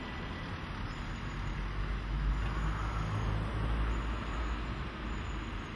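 Road traffic noise, with a low rumble from a passing vehicle that swells about two seconds in and eases off near the end.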